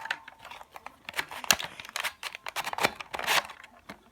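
Scattered plastic clicks and rustling as a Nerf blaster is handled after a shot, with a sharper click about one and a half seconds in and another cluster near three seconds.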